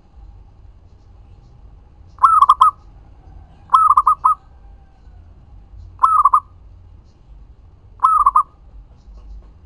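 Zebra dove (perkutut) cooing: four short bursts of quick, clear coos, each a tight cluster of three or four notes, about two seconds apart.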